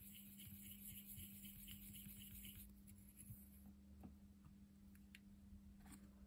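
Faint, rhythmic scraping of a paintbrush handle stirring enamel paint in a small metal Humbrol tinlet, about four strokes a second, stopping a little under three seconds in; a few soft clicks follow as the tin is handled.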